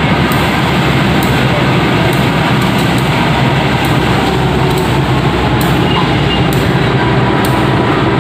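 Diesel-electric locomotives running close by: a loud, steady engine drone as one locomotive rolls slowly past on the adjacent track, with occasional sharp clicks about once a second.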